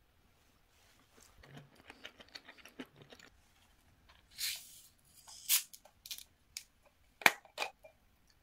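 A plastic cola bottle being handled and its cap twisted open: a run of small crinkles and clicks from the plastic, then two short hisses of carbonation escaping midway. A few sharp clicks and knocks follow near the end, the loudest of them about seven seconds in.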